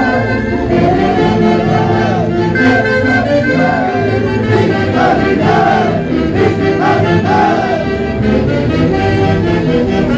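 Chonguinada dance music from a live band: a repeating melody of short arching phrases over a steady bass.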